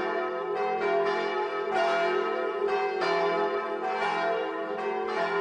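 Church bells ringing in a peal, several bells struck one after another with their long ringing tones overlapping.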